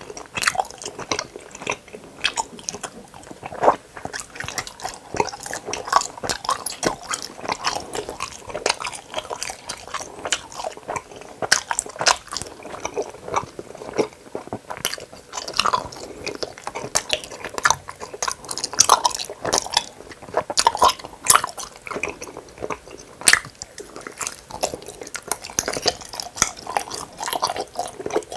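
Close-miked chewing of hamburger-shaped gummy candies: irregular sticky, wet mouth clicks and smacks as the gummy is bitten and chewed.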